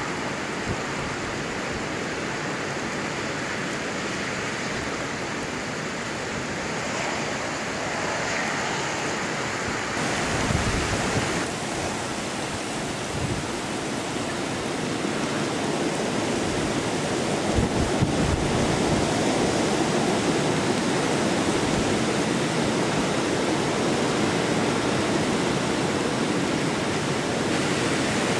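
Steady rain and wind of a hurricane, a dense even hiss that grows louder about ten seconds in and again later, with a few brief low thumps.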